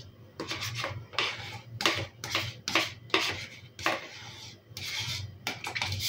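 A spoon scraping the inside of a plastic crème fraîche tub in a quick series of short strokes, some two or three a second, getting out the last of the cream.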